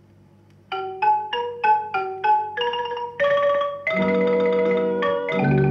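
Opening of a vinyl record of a Thai pop song. After a faint moment of record hum, a mallet instrument like a xylophone plays a run of single struck notes, about three a second. About three seconds in, a fuller band joins.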